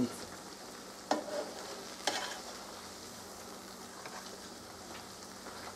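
Elephant ear dough frying in shallow oil in an electric skillet, a steady sizzle. Two short sharp sounds come about a second apart near the start.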